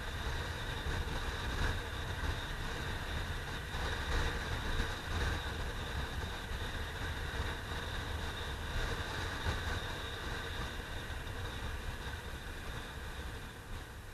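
Honda CBR600F3's inline-four engine running steadily at cruising speed, mixed with heavy wind rush on the action camera's microphone.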